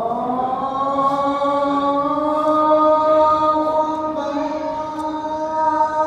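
Islamic devotional chanting: a single voice holds one long note, sliding up in pitch at the start and then held steady.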